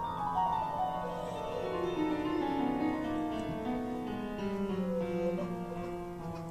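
Solo grand piano playing a classical passage, a line of notes stepping downward from the middle register over the first three seconds, then settling into the lower register, ringing in a large hall.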